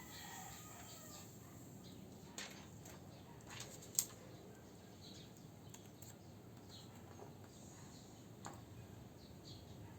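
Quiet handling noise: a few light clicks and taps of small objects being handled, the sharpest about four seconds in, over a faint steady hiss.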